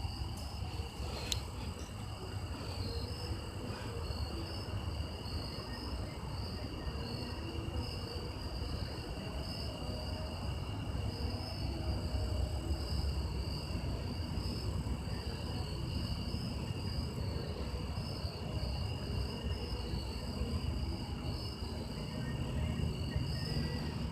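Steady chorus of insects such as crickets, a continuous high trilling that holds through, over a constant low rumble.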